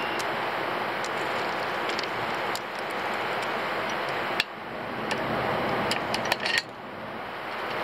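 Steady rushing noise with hand-tool clicks and taps on the outboard's lower unit: one sharp click about halfway through, then a quick run of several more clicks.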